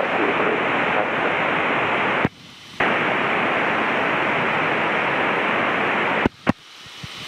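Loud hiss of static from a Cessna 152's COM radio in the headset. It cuts out abruptly for about half a second a little after two seconds in, and again briefly near the end, with a click at each break, then slowly swells back. The uploader takes this static for the sign of the COM radio slowly dying.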